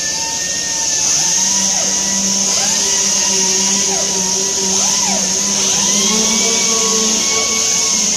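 Compressed-air tool running continuously on a truck body: a strong steady hiss of air over a machine hum, with pitches that repeatedly dip and rise.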